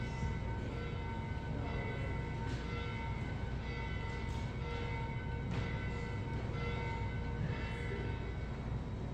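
Church bell ringing, struck every second or two, its tone carrying on between strokes.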